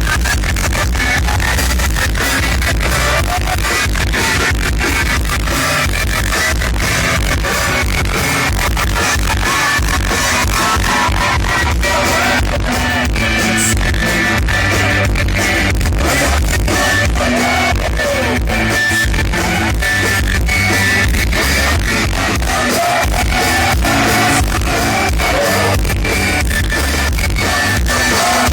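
Loud live rock music from a band: driving drums, bass and electric guitars playing steadily.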